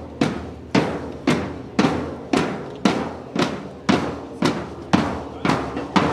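Drums beating a steady cadence, about two evenly spaced strikes a second, with deep drum tones under sharper hits.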